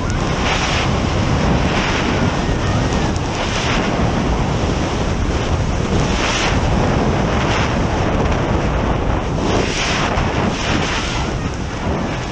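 Freefall wind blasting over a camera microphone during a tandem skydive: a loud, continuous rushing roar that surges unevenly every second or two.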